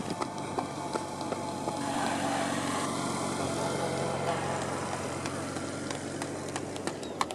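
A race escort vehicle's engine running steadily as it passes, a low hum that comes up about a second and a half in and dies away near the end.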